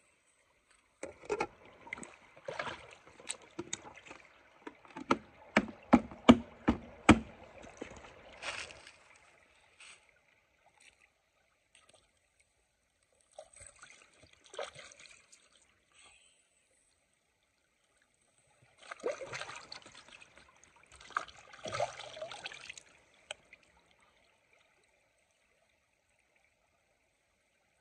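Creek water splashing and sloshing as a plastic bucket is rinsed out: scooped full, swished and tossed back into the shallow stream, in three bouts. The first and loudest bout has a quick run of sharp slaps about five to seven seconds in.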